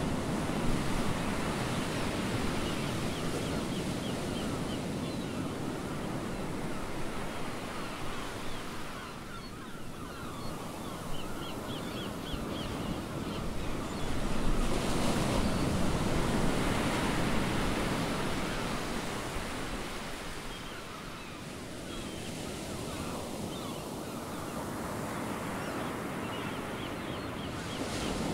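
Ocean surf washing and breaking in a steady rush that swells and ebbs, jumping louder about fourteen seconds in and easing off by about twenty-one seconds. Faint short high chirps come through now and then.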